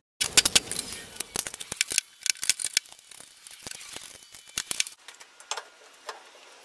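Steel winch parts and hardware clinking and knocking as they are handled and fitted by hand: a dense run of sharp metallic clicks and knocks that thins to a few single clicks near the end.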